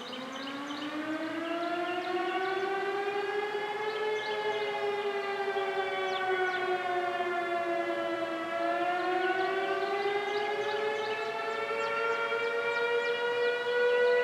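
Mechanical outdoor warning sirens winding up and wailing: one spins up from a low pitch, its tone dipping in the middle and rising again. A second siren's steady chord joins in about halfway in.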